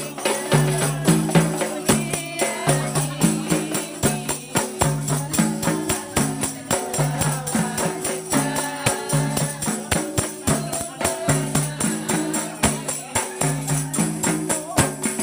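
Rebana frame drums and a jingled tambourine struck by hand together in a steady, fast rhythm: deep drum beats under the shimmer of the tambourine's jingles.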